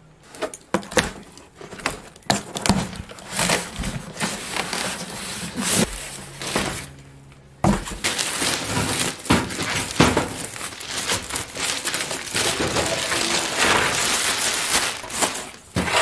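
Cardboard shipping box being opened and handled: a string of knocks and scrapes. From about halfway comes continuous crinkling and rustling of the plastic bag and foam packing around a computer case as it is lifted out.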